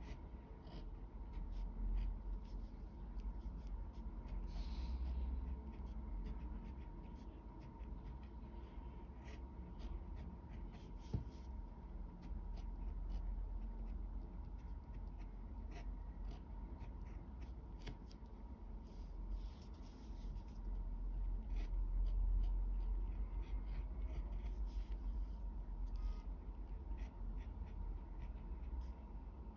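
Pen tip scratching and ticking on paper in short, irregular strokes as Chinese characters are handwritten, over a faint steady hum.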